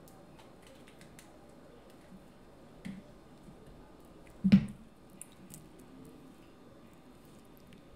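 King crab leg shell being cracked and pulled apart by hand close to the microphone: small snaps and clicks of shell, with a louder knock about four and a half seconds in.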